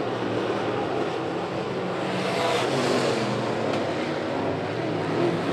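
Sportsman dirt-track race cars' engines running hard at racing speed as the cars go by, a steady, continuous engine sound with no single pass standing out.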